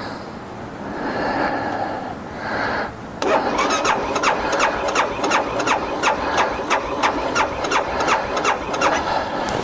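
2012 BMW G 650 GS Sertao's single-cylinder engine being cranked by its electric starter without catching. About three seconds in, a steady rhythm of compression beats sets in, about three a second, and runs for some six seconds: a sign of the bike's recurring no-start fault.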